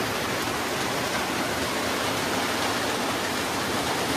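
Steady rain falling on a corrugated metal roof, an even hiss with no breaks.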